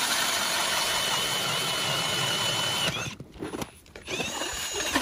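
Cordless electric drill spinning a 6-inch ice auger as it bores through lake ice: a steady motor whine over the grinding of ice. It stops about three seconds in, then spins briefly again near the end.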